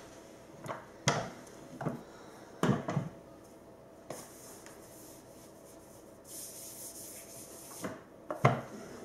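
Hands rubbing and turning a sheet of rolled fondant icing on a wooden worktop: a soft hiss of rubbing with a few light knocks and scrapes.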